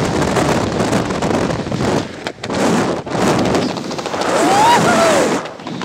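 Wind buffeting the skydiver's helmet camera microphone just after the parachute has opened, coming in uneven gusts with two brief lulls. About four and a half seconds in there is a short pitched sound that rises and then falls.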